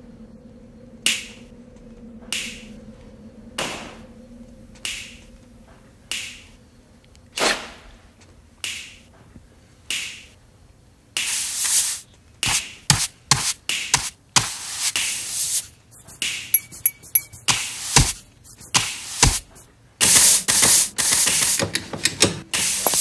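Finger snaps in unison, eight sharp snaps about one every 1.3 seconds. About halfway through they give way to a dense, irregular run of sharp knocks, crashes and noisy bursts.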